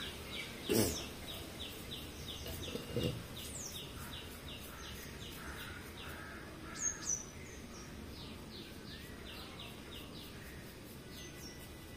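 Birds calling: a small bird repeats a short high chirp about three times a second, pausing briefly near the middle, while two louder, lower calls stand out about one and three seconds in.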